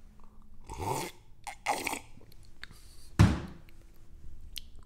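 A man sipping and swallowing a hot drink: a few soft slurps and gulps, with a dull thunk about three seconds in.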